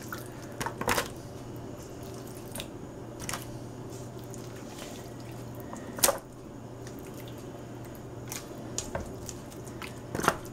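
Marinated chicken pieces handled and dropped from a metal bowl into a plastic bucket: wet squishing and dripping with scattered short knocks, the loudest about six seconds in. A steady low hum runs underneath.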